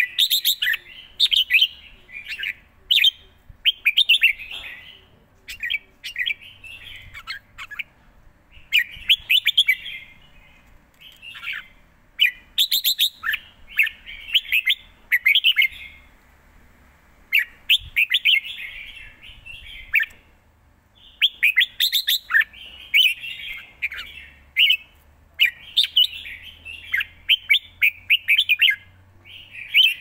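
Red-whiskered bulbul singing: quick, bubbly song phrases one after another, broken by a few short pauses.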